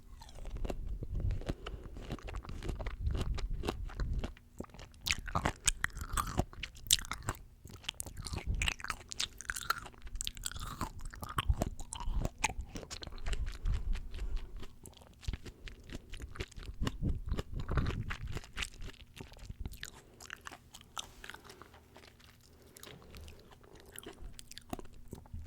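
Close-miked chewing and crunching of juicy fresh fruit, a dense run of wet crunches and mouth clicks. The crunching is heaviest in the first few seconds and again about two-thirds through, and eases off toward the end.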